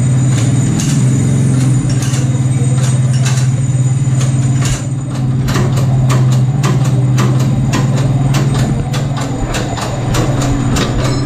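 A machine running with a steady low hum, with frequent sharp clicks and knocks over it that come thicker in the second half.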